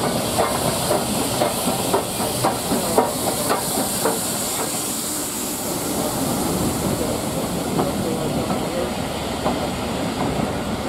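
Steam locomotive 53808, an S&DJR 7F 2-8-0, passes with a steady hiss of steam that fades about halfway through. Its coaches then roll by, the wheels clicking over the rail joints.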